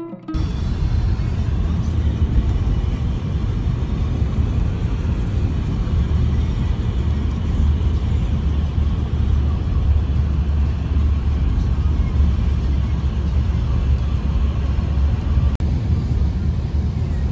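Steady road noise heard from inside a car driving on a wet highway: a constant low rumble with tyre hiss over it.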